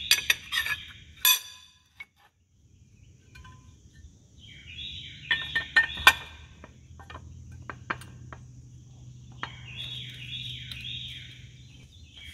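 Sharp metal clinks and knocks as a steel parallel is tapped down in a machine vise and a cast-aluminium intake manifold is set onto it, the loudest clinks near the start and about six seconds in. A bird sings short chirping phrases several times in the background.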